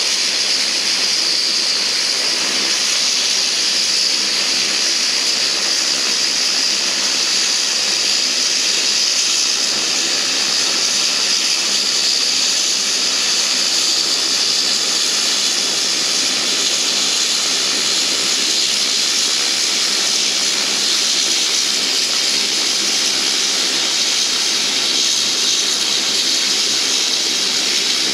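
Twin turboprop engines of an Embraer EMB-120 Brasilia running as it taxis, a steady high hissing whine.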